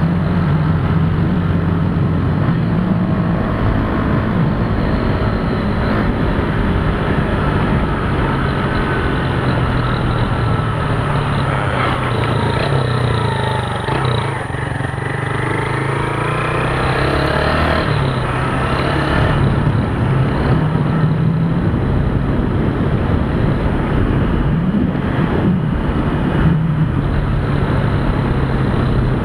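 Motorcycle engine running under way, its pitch stepping up and down several times as the bike speeds up and slows, over a steady rush of wind on the handlebar-mounted camera.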